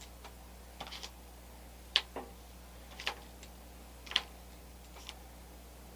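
Five light, sharp clicks about a second apart over a faint steady hum.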